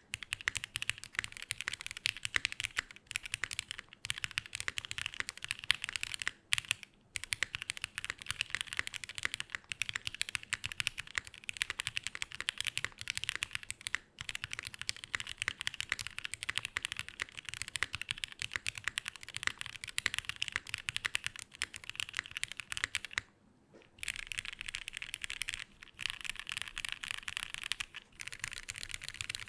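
Fast, continuous typing on a Tofu60 Redux custom mechanical keyboard with lubed Vintage Black linear switches, mounted plateless in a Poron-foam-filled case under GMK keycaps. The key strikes run in a dense stream, with brief pauses about six and a half seconds in and again about 23 seconds in.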